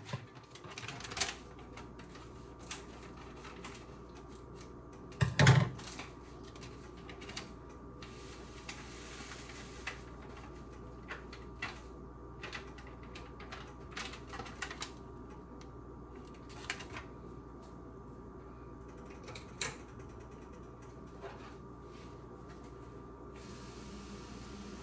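Scattered clinks and knocks of a utensil against pots on an electric stove, with a louder clatter about five seconds in, over a steady low hum. Near the end, water starts running from the kitchen tap.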